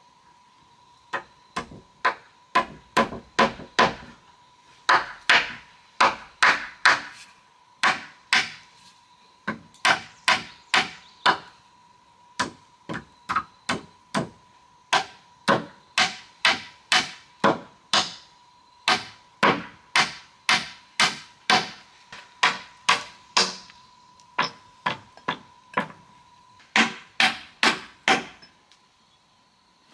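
Hammer striking wood, blow after blow in quick runs of about two to three a second with short pauses between.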